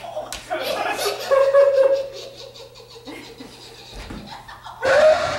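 Non-verbal human voices: laughter-like vocal sounds in bursts, with one long held vocal tone about a second in and another loud burst near the end.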